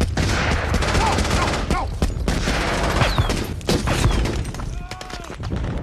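Dense gunfire: many rifle and machine-gun shots cracking in quick succession over a constant low rumble of battle, with a few brief shouts in between.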